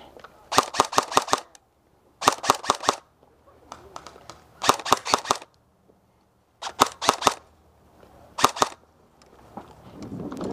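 Airsoft gun firing five short bursts of rapid, sharp shots, about eight a second, with pauses of a second or so between bursts.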